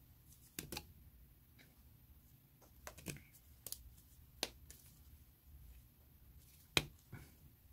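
Faint, sharp plastic clicks and taps, about seven in all with the loudest near the end, from an Arrtx Vega alcohol marker being handled and pulled at, its ink filler having come loose inside the barrel.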